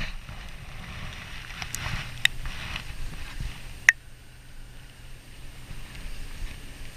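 Low rumble of wind on the microphone with a faint hiss of rain, and a few sharp clicks from a spinning rod and reel being handled, the loudest about four seconds in.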